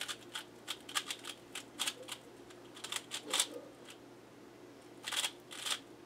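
A QiYi Valk 3 speed cube being turned by hand: a run of quick, irregular plastic clicks over the first three and a half seconds, then two louder clicks near the end.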